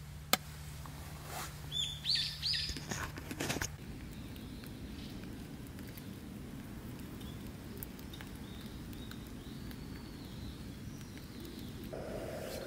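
A sharp click, then birds chirping loudly for about two seconds. After that, a steady low rumble from a gas camping stove burner heating an aluminium mess tin, with faint bird calls over it.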